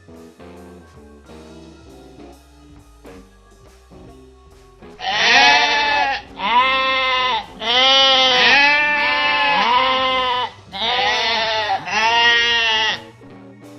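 A farm animal bleating loudly and repeatedly, in about five bursts of wavering calls starting about five seconds in, over quiet plucked-string background music.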